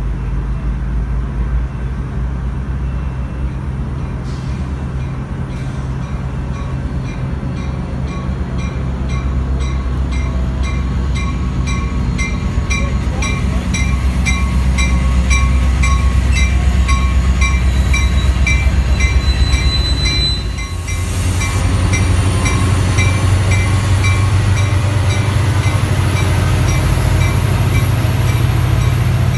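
NCTD Coaster F40PH diesel locomotive pulling into the station: a steady deep engine drone with a bell ringing about twice a second over it. A thin high squeal rises in pitch through the last third.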